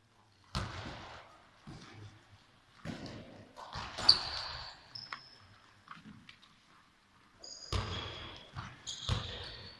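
Handballs thrown at a goal in a sports hall: several sharp ball impacts with a hall echo, the loudest about four seconds in. Short high squeaks come between the impacts, about four seconds in and again near the end.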